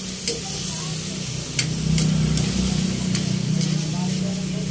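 Diced pork sizzling in hot oil in a metal pan as it is stirred, with sharp scrapes and knocks of the spatula against the pan every so often. A steady low hum runs underneath and grows louder about one and a half seconds in.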